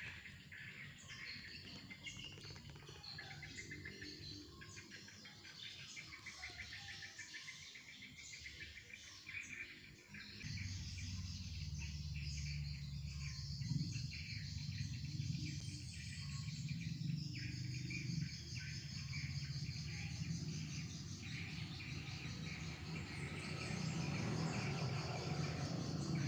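Many small birds chirping and trilling without pause. A steady low hum comes in suddenly about ten seconds in and continues beneath the birds.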